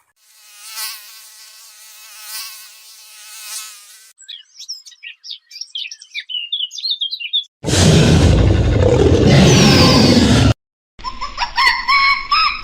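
A run of separate animal sounds: a buzzing insect drone for about four seconds, then quick bird chirps, then a loud rushing noise lasting about three seconds that cuts off suddenly, then goose honks starting near the end.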